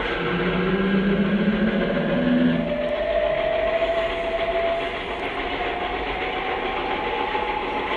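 Cartoon soundtrack effect of a steady machine-like rumble and hiss. A low hum sounds for the first few seconds, and a whistle-like tone slowly rises in pitch throughout.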